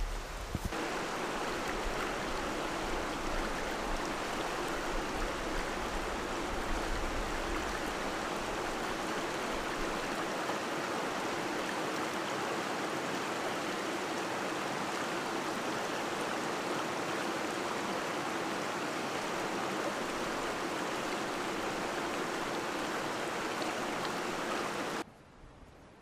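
Steady rush of a flowing stream, which cuts off abruptly about a second before the end.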